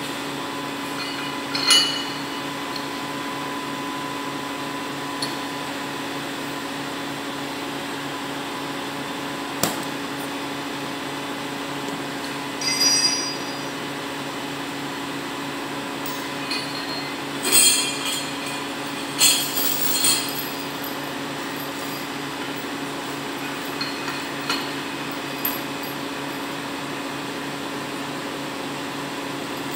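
Crane chain and lifting hooks clanking and clinking against the test-weight lifting gear, a dozen or so short sharp knocks with the loudest cluster a little past halfway, over the steady hum of the truck-mounted crane's running machinery.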